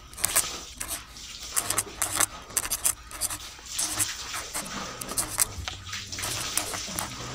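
Paper strips sliding through the slots of a cardboard model, a run of short scratchy rustles and scrapes.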